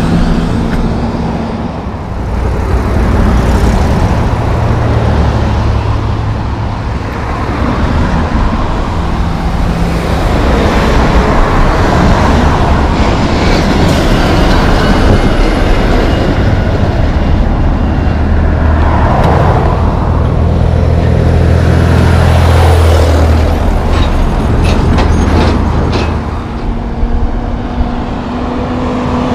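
Heavy diesel trucks passing close on a highway one after another, engine drone and tyre noise swelling and fading with each pass. The loudest pass is about two-thirds through, and a short rattle of clicks comes near the end.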